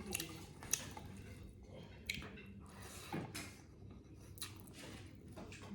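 Close-up eating sounds: soft chewing and wet mouth smacks from a mouthful of chicken curry and rice, with a handful of short clicks spread through.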